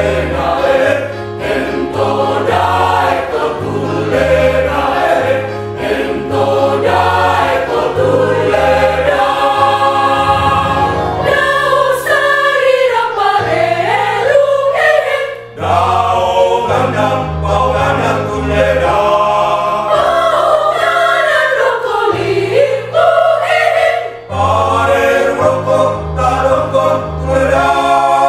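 Mixed choir of women's and men's voices singing in parts. The singing breaks briefly about halfway through and again near the end.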